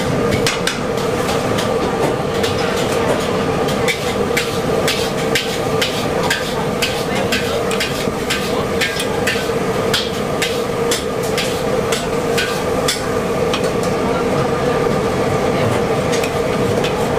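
Metal wok spatula repeatedly clanking and scraping against a large steel wok as noodles and eggs are stir-fried, over a steady hum. The clanks come quick and close together, then thin out near the end.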